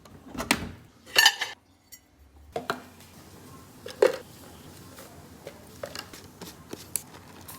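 Hard kitchenware being handled, clinking and knocking: a few louder knocks in the first four seconds, then lighter taps.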